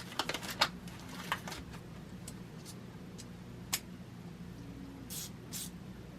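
Light metallic clicks and clatter of small hardware and hand tools being handled at a bench: a quick run of clicks in the first second and another around a second in, one sharp click midway, and two short scraping rustles near the end, over a steady low hum.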